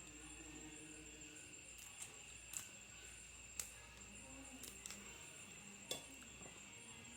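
Faint, steady high chirring of night crickets, with a spoon clinking on a plate four times.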